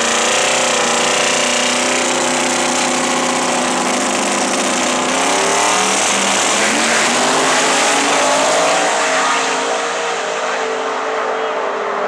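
Twin-turbo drag-racing Chevy II engine running loud and steady, its pitch wavering slightly, over a hiss of noise.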